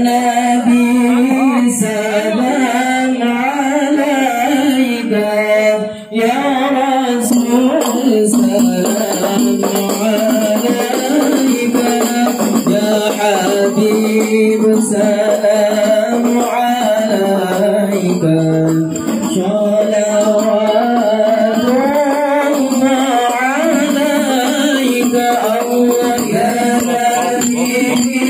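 Group singing with rebana frame drums beating along.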